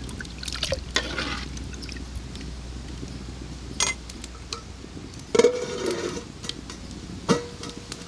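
A steel ladle stirs thin drumstick-leaf sambar in a clay pot, with soft sloshing and scraping. Later come a few metal clicks and two loud clanks with a short ring as a stainless steel plate is set on the pot as a lid.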